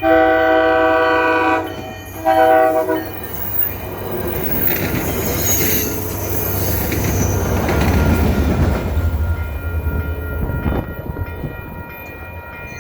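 Multi-tone horn on Kawasaki cab car #1718 sounding a long chord blast, a shorter second blast and a brief toot. Then the train's rumble and wheels clacking over rail joints, which grows as the cars pass and eases off near the end.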